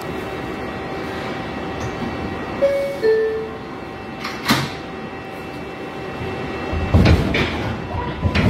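New York City subway car's door chime sounds as two descending tones, then the doors slide shut with a thud. Near the end the train starts to pull away: low rumbling and clanking, with a steady motor whine setting in.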